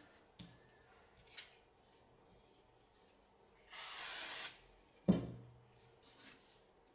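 A short hiss from an aerosol can of CA glue activator sprayed onto a thin wooden piece, lasting under a second, about four seconds in. About a second later comes a sharp knock of wood set down on the table, with a few light taps of small wooden parts being handled before it.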